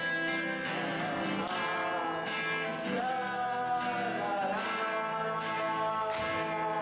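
Acoustic guitar strummed in a steady rhythm under a singing voice holding long, slightly wavering notes.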